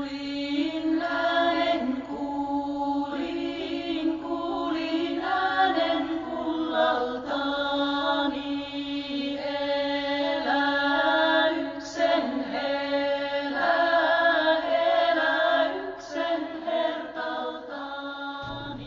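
Chanted vocal music over a steady drone: voices hold long notes while the melody moves slowly above the drone.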